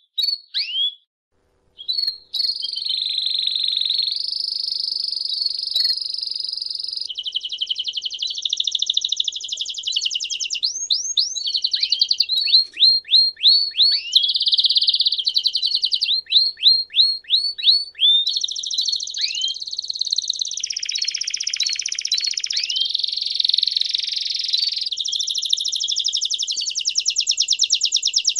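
Domestic canary singing a long, continuous song of trills, changing to a new trill every second or two. Runs of quick repeated notes that fall in pitch come in the middle, and a fast rattling trill comes near the end.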